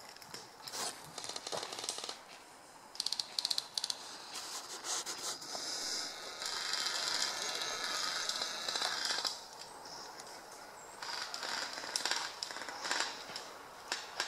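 Rustling and crackling of dry leaves and twigs as airsoft players move through brush, with clusters of sharp clicks and rattles a few seconds in and again near the end, and a stretch of steady hiss in the middle.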